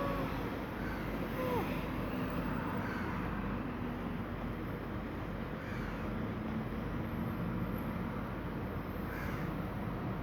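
A kitten's meow trails off right at the start, and a short cry that drops in pitch follows about a second and a half in. After that there is only a steady background noise with a faint low hum.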